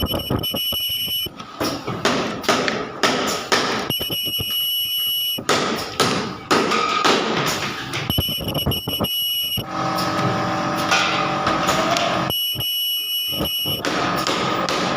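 Ultrasonic plastic welder on a rotary table, welding bottle caps. Its high-pitched squeal sounds for about a second and a half, four times, roughly every four seconds. Mechanical clatter and noise fill the gaps between welds.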